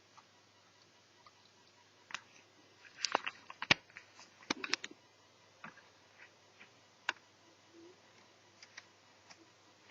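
Scattered light clicks and taps from small netbook parts and tools being handled during a teardown. The clicks are busiest about three to five seconds in, with single sharper ticks near two and seven seconds.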